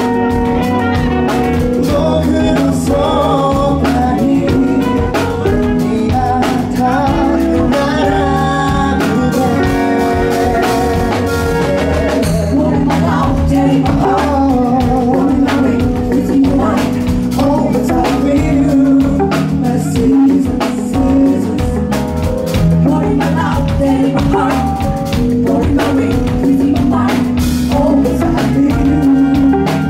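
Live pop band performing a song: a man singing lead over electric guitar and a drum kit.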